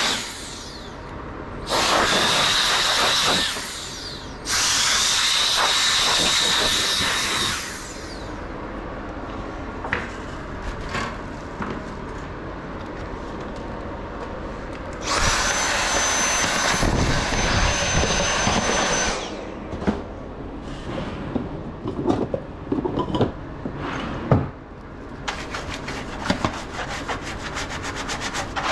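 Handheld electric air duster blowing in three blasts of two to four seconds each, its motor whining steadily, higher in pitch in the last, longer blast. Between the blasts there is rubbing and light clicking from handling.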